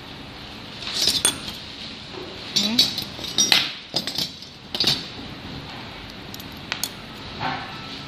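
Small aluminium parts and screws clinking and rattling against each other as they are handled and fitted together by hand, a cluster of sharp clinks through the first half and a couple more near the end.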